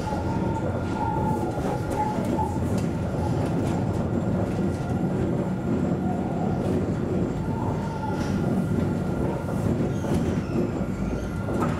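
Alstom Citadis tram running on street track, heard from the driver's cab: a steady rumble of wheels on rail with a steady high electric whine. A wavering higher tone comes in near the start and again about eight seconds in.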